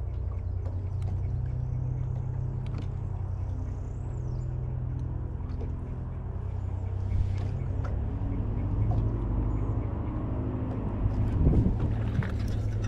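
Steady low drone of a boat motor, with a few faint bird chirps in the first half and a brief knock about three-quarters of the way through.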